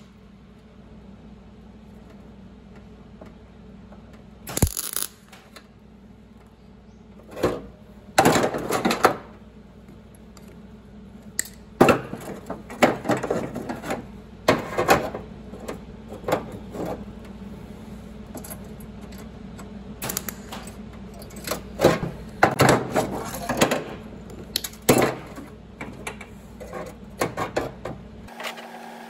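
A welder laying short tack welds on steel body-panel sheet: brief crackling bursts of a fraction of a second to about a second each, irregularly spaced, over a steady low hum.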